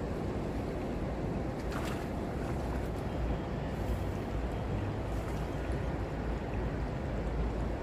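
Steady rushing of flowing river water, with a few faint clicks.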